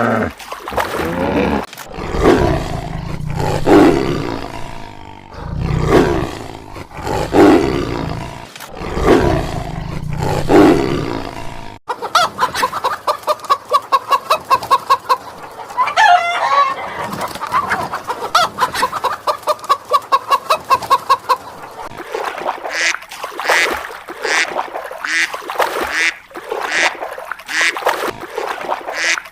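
Repeated animal calls. They come at an even pace for the first twelve seconds, then turn into a rapid pulsing run, and end in a series of short, sharp calls.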